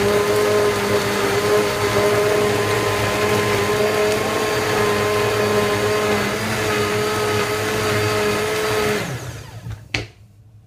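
Countertop blender running steadily with a whine, blending a smoothie of water and ice cubes, then switched off about nine seconds in and winding down. A sharp knock follows as the jug is lifted off the base.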